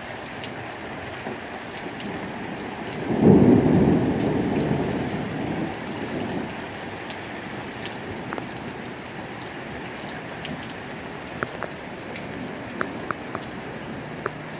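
Steady heavy rain with a loud rumble of thunder starting about three seconds in and fading over a few seconds. Scattered sharp drops tick on a hard surface near the end.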